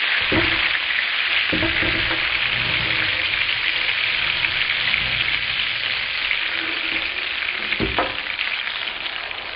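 Butter sizzling steadily as it melts in a hot frying pan, pushed around with a slotted spatula, which knocks lightly against the pan a few times.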